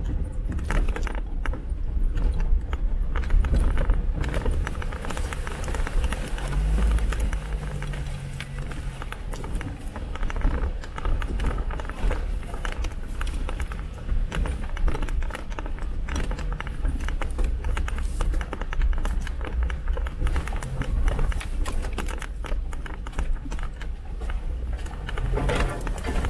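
Four-wheel-drive vehicle driving off-road over rough ground: a constant low rumble with frequent rattles and knocks.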